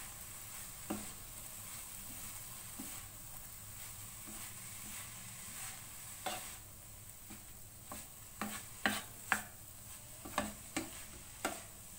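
Boiled rice being stirred into corn and vegetables in a frying pan over a low sizzle, the utensil knocking and scraping against the pan; the knocks come thick and fast in the second half.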